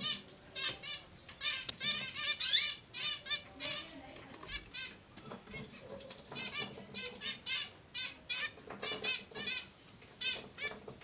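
Zebra finch chicks begging, short high chirps repeated a few times a second in runs, the food call of nestlings being fed.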